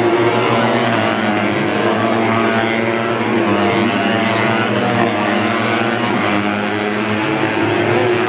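Several racing motorcycle engines revving hard together as the bikes pass on the circuit, their pitches rising and falling and overlapping.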